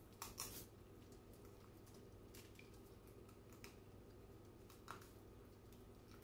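Kitchen shears cutting along the backbone of a raw Cornish hen: a few faint, short snips spread over several seconds, over a low steady hum.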